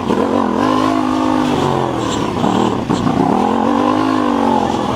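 Yamaha MT-07's parallel-twin engine under way, the revs rising, easing off about a second and a half in, then rising again before dropping near the end.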